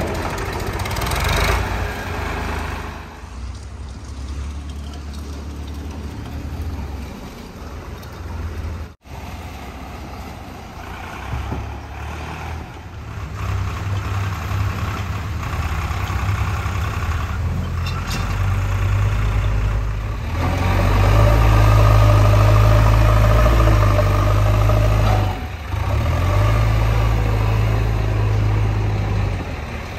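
Diesel engines of a JCB 3DX backhoe loader and tractors running at work, a deep steady hum that cuts out for a moment a little under a third of the way in and runs louder from about two-thirds through.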